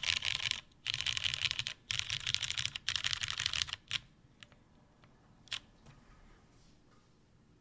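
Fast typing on a top-mounted custom mechanical keyboard with lubed Cherry MX Brown tactile switches, a 2mm polycarbonate plate and GMK keycaps: rapid runs of key presses with brief pauses. The typing stops about four seconds in, followed by a couple of single key clicks.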